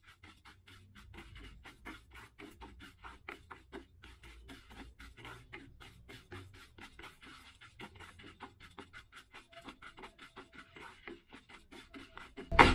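A spatula stirring and scraping split green gram as it dry-roasts in a pan, making soft, even scratchy strokes about two to three times a second.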